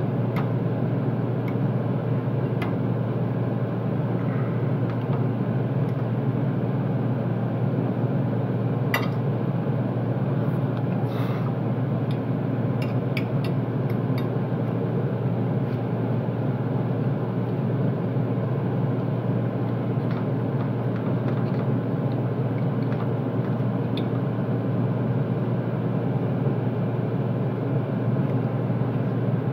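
Steady low hum and rush of commercial kitchen equipment running, with a few short clicks of a fork against a plate.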